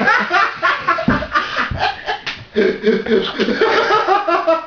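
People laughing in quick, broken bursts.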